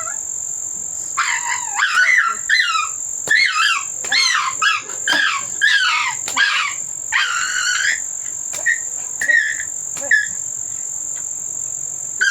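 A dog whining, a run of short, high, rising-and-falling whimpers packed close together and then spaced out, over a steady high insect drone.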